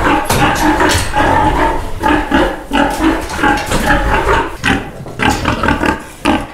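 Pigs squealing and grunting in short, rapid, repeated calls: an upset sow and her piglets, distressed at being separated for handling.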